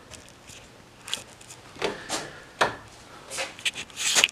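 Handling and movement noises: a scattering of short knocks, rubs and clicks, thickest and loudest near the end.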